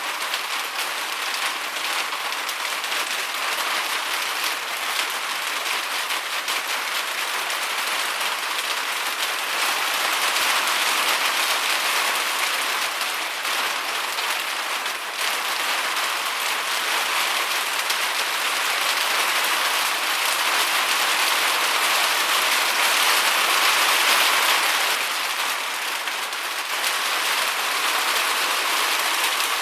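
Rain pattering on a rain gutter and water running through it: a steady, dense hiss of drops that swells slightly now and then.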